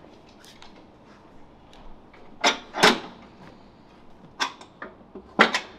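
Metal gym equipment clanking: a handful of sharp, irregularly spaced knocks, the loudest two close together about two and a half seconds in and another pair near the end.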